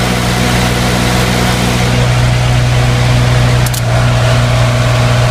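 Naturally aspirated four-cylinder 30 kW diesel generator running steadily while under load test. A single sharp click sounds about three and a half seconds in, and a faint steady higher hum joins right after.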